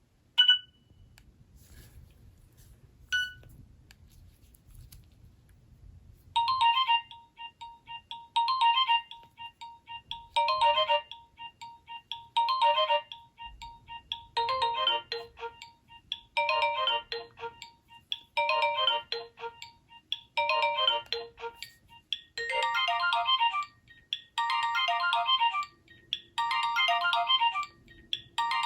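A built-in Nokia N91 ringtone playing through the phone's single mono speaker at medium volume: a short synthesized melodic phrase repeats about every two seconds, with more parts joining as it goes and a bass line coming in near the end. It is preceded by two short beeps in the first few seconds.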